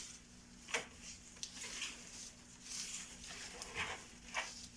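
Faint rustling and a few soft taps from an artificial Christmas garland being handled and set in place, over a steady low electrical hum.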